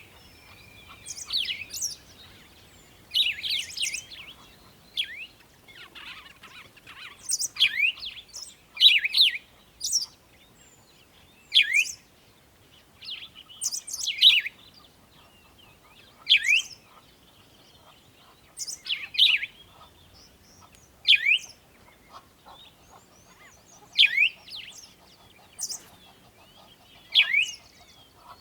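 Bird chirping: short, sharp, high-pitched phrases repeated about every two to three seconds.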